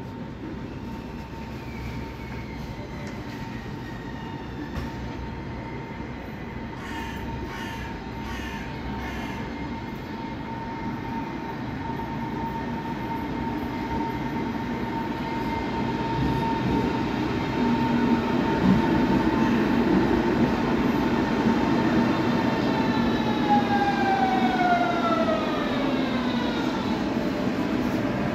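Berlin S-Bahn class 482 electric train pulling into the platform, growing louder as it approaches. Its electric drive whines in several tones that fall in pitch near the end as the train brakes to a stop.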